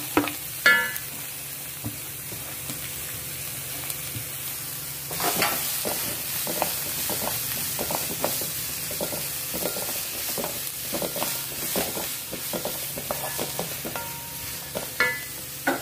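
Chopped onions sizzling in hot coconut oil in a pan, stirred with a spatula that scrapes and knocks against the pan again and again. A ringing clink just under a second in and another near the end.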